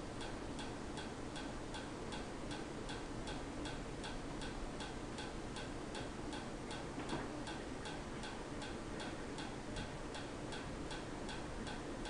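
Hunter Custom Home ceiling fan running, a steady hum overlaid by a light, even ticking about three times a second. The ticking comes from the fan as it turns and goes with its wobble, which is caused by a bent blade bracket.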